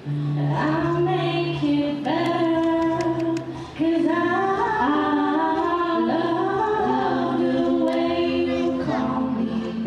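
Two girls singing a song together into handheld microphones, with a short pause about three and a half seconds in.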